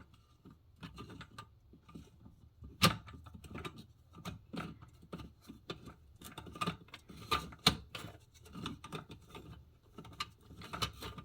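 Small parts of a sink pop-up drain kit being handled: irregular light clicks, taps and rustling, with two sharper knocks about three seconds in and near eight seconds.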